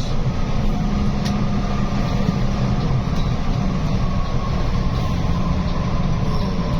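Steady engine and road drone of a moving bus, heard from inside, with a faint steady whine above the low hum.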